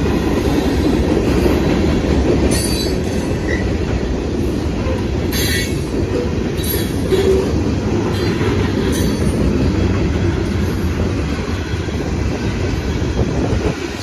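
Freight train cars rolling past on the rails in a steady, loud rumble. A few short, high-pitched wheel squeals cut through it, the strongest about five seconds in.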